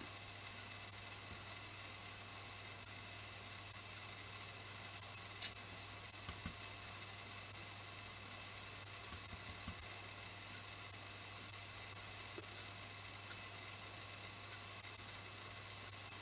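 Steady high hiss with a low mains hum underneath and no distinct event, only a few very faint soft knocks.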